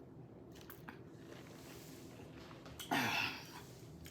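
Quiet room tone with a few faint clicks, then about three seconds in a short throaty vocal sound from the person eating and drinking, with a falling pitch.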